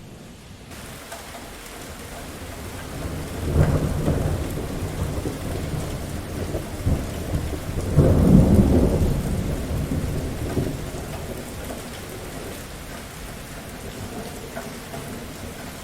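Steady rain falling with two rolls of thunder. The first rumble swells about three to four seconds in. A longer, louder one peaks about eight seconds in and dies away over the next few seconds, leaving the rain.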